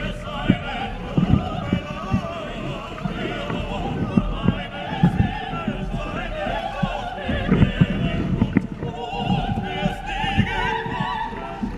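Background music with an operatic singing voice, its pitch wavering with vibrato, over irregular low thuds.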